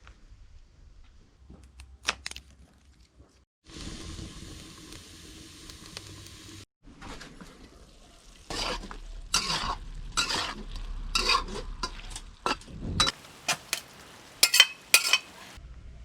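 Chicken wings and beans sizzling in a pan, then a utensil stirring and scraping against the pan in a run of quick strokes, loudest near the end.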